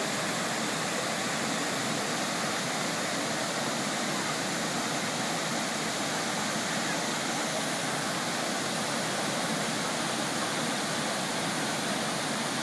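Steady, even rushing of the Krka waterfalls, falling water with no other distinct sound on top.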